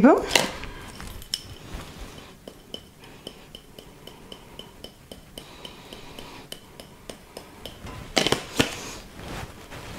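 Kitchen handling sounds: a run of faint, even clicks at about four a second lasting several seconds, then a few louder clinks of dishes and cutlery about eight seconds in.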